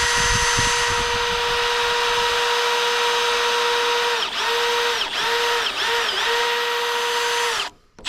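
Power drill running steadily as it bores a hole. Its motor whine dips briefly in pitch four times in the second half, then stops shortly before the end.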